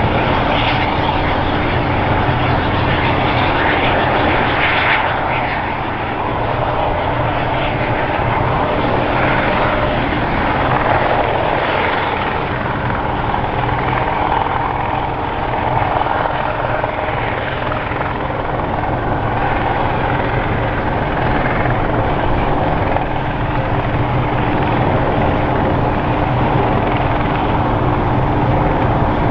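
Airbus EC120B Colibri helicopter hover-taxiing low, its single turboshaft engine and rotors running with a steady, unbroken drone.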